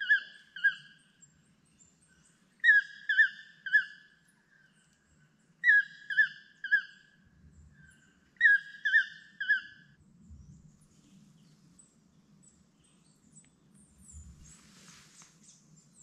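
A recorded toucan call played back from a phone's speaker to lure a toucan closer: phrases of three sharp, yelping notes repeated about every three seconds, four times, stopping about ten seconds in.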